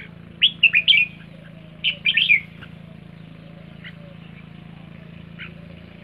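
Caged red-whiskered bulbul calling in two quick bursts of short, sharp chirps, about half a second in and again about two seconds in, followed by a couple of faint single notes. These are the calls that Thai bulbul keepers call 'rik' (ริก).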